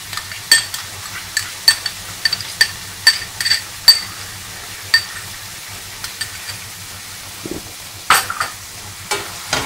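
Chopped onions sizzling in a stainless steel frying pan, with a quick run of sharp taps and clinks on the pan in the first five seconds or so, each ringing briefly, then mostly just the sizzle, and one more knock near the end.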